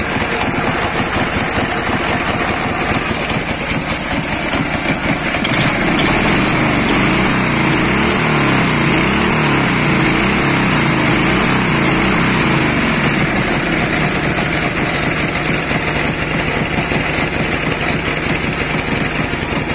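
Dnepr MT-10-36 motorcycle's flat-twin engine running after its connecting rod and big-end bearings were replaced. It speeds up and slows down several times in the middle, then settles back to a steady idle.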